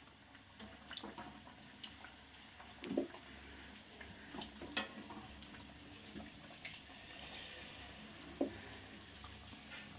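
Pendki dumplings deep-frying in a kadhai of hot oil: a faint, steady sizzle, with scattered light clicks and taps of a wire skimmer against the pan.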